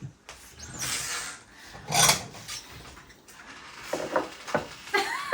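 Brief rubbing and scraping handling noises, with two louder rasping bursts about one and two seconds in.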